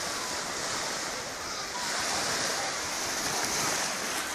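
Black Sea surf washing onto a sandy beach: a continuous rush of waves that swells and eases a little.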